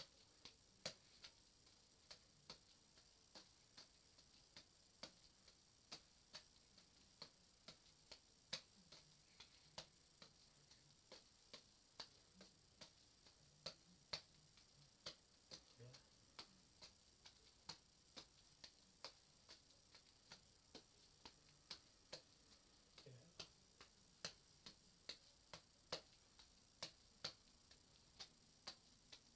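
Juggling balls smacking into the hands as they are caught in a windmill juggling pattern: light, sharp ticks about twice a second, slightly uneven in spacing.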